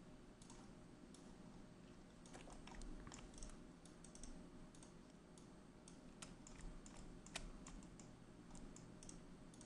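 Faint, irregular clicks of a computer keyboard and mouse over a low steady hum.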